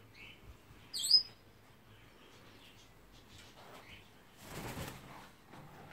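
Pet parrots in a bird room: one loud, shrill squawk about a second in, a few faint chirps, and a brief flutter of wings a little before the end.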